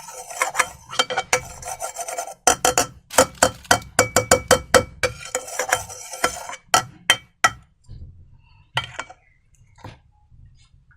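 Sharp clicks and clinks of hard containers and utensils being handled while making slime. They come in a quick, dense run for the first half, then thin out to a few single clicks by the end.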